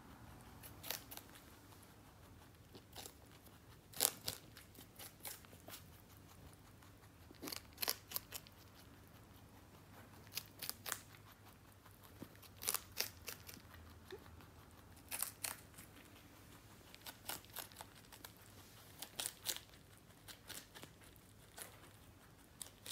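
Rabbit chewing crisp greens: faint, sharp crunching clicks in short, irregular bursts.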